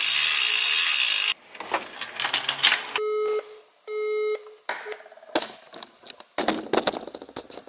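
A smartphone's earpiece sounds a busy signal: two short, steady beeps about half a second apart, meaning the called line is engaged, followed by taps and handling clicks on the phone. Before them, for about the first second, a loud dense rattle of the bicycle's drivetrain cuts off abruptly.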